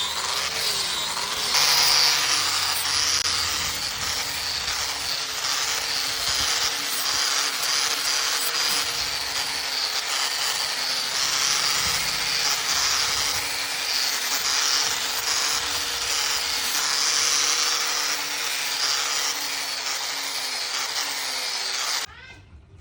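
Electric power tool running steadily, a motor whine under a loud hissing abrasive noise, cutting off suddenly near the end.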